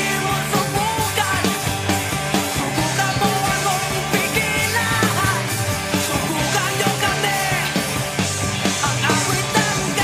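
Background music: a rock song with a steady bass line and a gliding melody above it.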